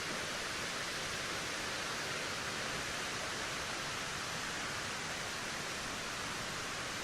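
Steady wind noise, an even hiss that does not gust, rise or fall.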